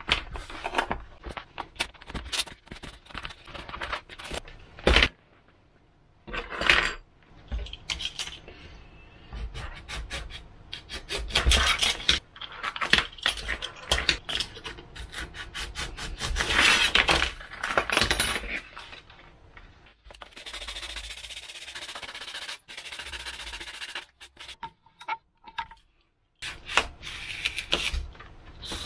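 An EPP foam glider and its parts being handled on a wooden workbench: foam rubbing and irregular light knocks and clicks as pieces and tools are picked up and set down, with a steadier hiss-like stretch of a few seconds about two-thirds of the way through.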